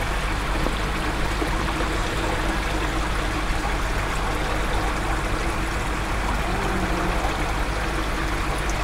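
Water trickling steadily into a koi fry tank from the filter return, with a low steady hum underneath.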